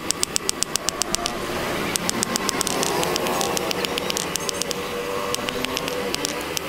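Quick runs of hand-hammer blows on a red-hot steel blank resting on an anvil, about seven or eight sharp strikes a second, with short pauses between runs, over a steady background noise.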